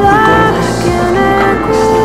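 Background music: a gentle song with sustained melody notes that slide between pitches over a steady accompaniment, with guitar in it.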